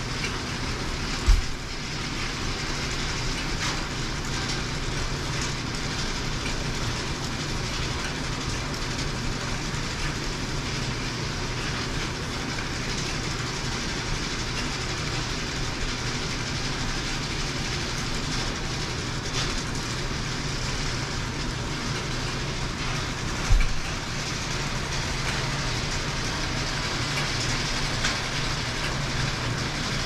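Hay bale elevator running steadily, a clattering chain conveyor over a constant low motor hum. Two heavy thumps, one about a second in and one near the end, as square hay bales are dropped onto the mow.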